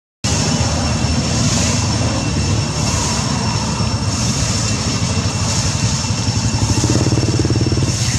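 A steady low motor-like drone with a fast pulsing texture, with two faint, steady high-pitched tones above it.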